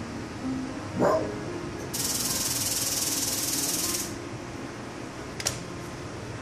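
A red fox gives one short, harsh alarm bark about a second in. A steady hiss follows for about two seconds, then a single sharp click.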